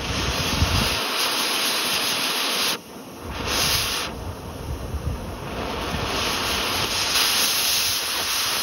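Oxy-acetylene torch flame hissing steadily as it heats and cuts into a pistol frame, with a brief dip in the hiss about three seconds in.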